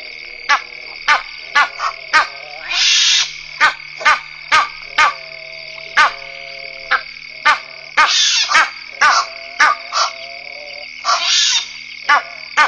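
Frogs calling at a waterhole: sharp clicking calls repeat irregularly over a steady high-pitched trilling chorus. Three short rasping calls break in, a few seconds apart.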